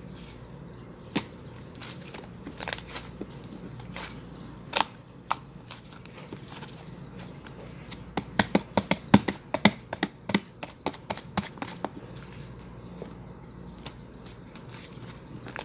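Slime being squeezed and pressed by hand, making sharp clicking pops: a few scattered at first, then a quick run of them in the middle that thins out toward the end.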